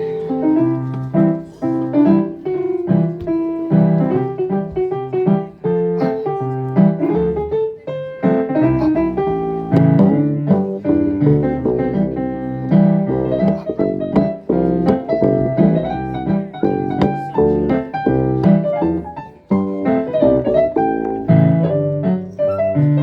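Piano playing an instrumental passage, with chords low down and a melody of many short struck notes over them.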